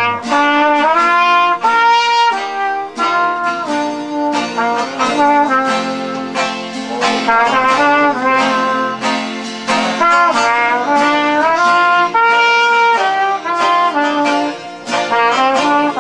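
Trumpet playing a lively jazz melody, accompanied by strummed banjo chords.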